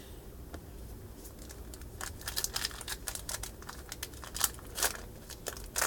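Trading-card pack wrapper crinkling and tearing open by hand, a rapid run of sharp crackles starting about two seconds in.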